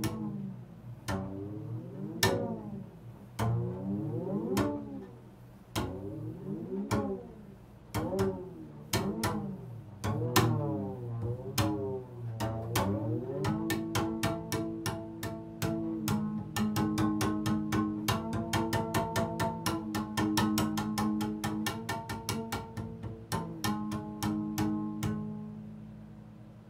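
Double bass struck on its strings with a stick. First comes a string of separate notes about a second apart, each bending in pitch. From about halfway it becomes a quick, even patter of strikes over held notes, fading out near the end.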